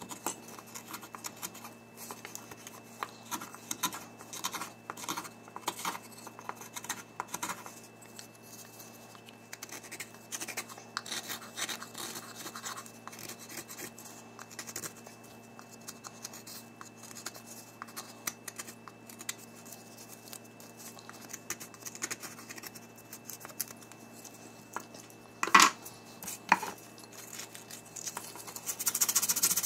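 Hand-carving a pine spoon: a run of short, dry scratching strokes of a blade on the wood, with two sharper knocks near the end. Just before the end a steady rubbing begins.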